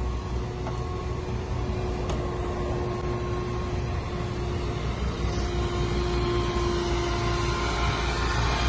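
Steady low vehicle rumble with a faint constant hum over it.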